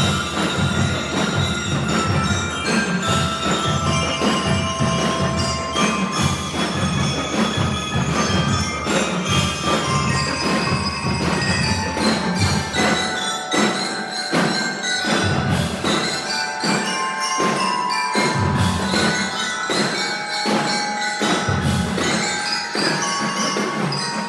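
Drum and lyre corps playing a Christmas tune: metal bell lyres ring out the melody over marching drums, with the deep drums dropping back for a few seconds in the middle.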